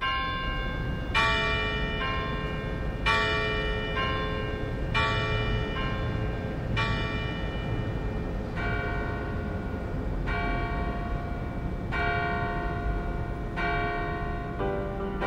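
Large church bells ringing, struck about every two seconds at changing pitches, each stroke ringing on over a low, steady background rumble. A piano comes in near the end.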